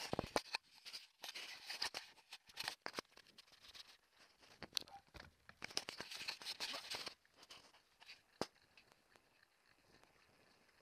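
Trek full-suspension mountain bike being ridden off down a rough, cracked trail: crunchy tyre noise, scrapes and rattling clicks, growing calmer and quieter near the end.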